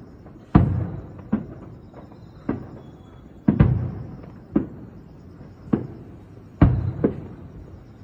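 Aerial firework shells bursting in quick succession, about eight booms roughly a second apart, each followed by a rumbling echo; the loudest come about half a second in, in the middle, and near the end.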